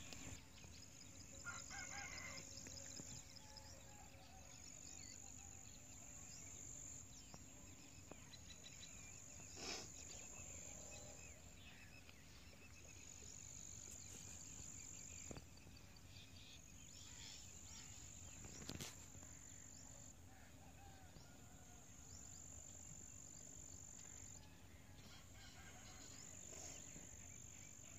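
Near silence: faint outdoor ambience, with a high-pitched insect call repeating every two to three seconds and a few faint clicks.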